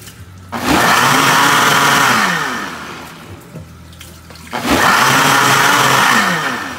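Countertop blender run twice, each time about a second and a half at full speed, blending a liquid green sauce. After each burst the motor spins down with a falling whine.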